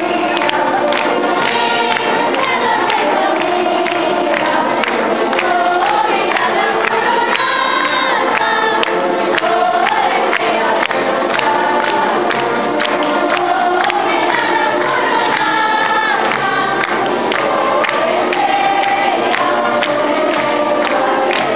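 Many voices singing a hymn together with instrumental accompaniment, loud and steady throughout.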